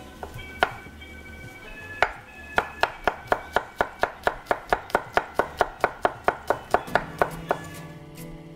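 Chef's knife mincing garlic on a wooden cutting board. There is a single knock, then another, then a steady run of about four quick chops a second that stops about a second before the end.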